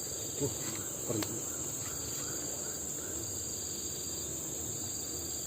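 Steady high-pitched chorus of crickets and other night insects, with a couple of brief faint knocks or voice sounds in the first second or so.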